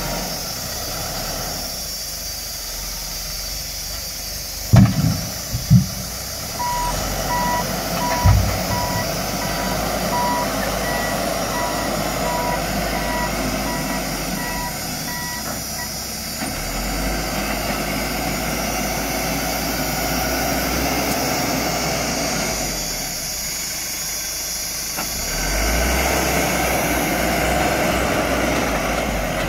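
Macao compact wheel loader's diesel engine running as the machine works with its log grapple, with a few loud knocks about five seconds in. Its reversing alarm beeps steadily for about nine seconds as the loader backs up.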